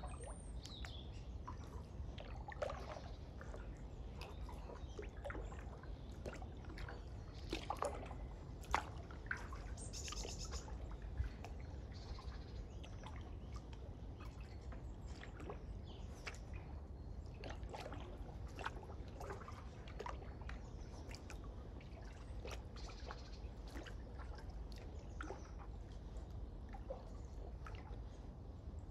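Water dripping and trickling off a kayak paddle as it dips, with scattered small splashes and clicks, and birds calling now and then.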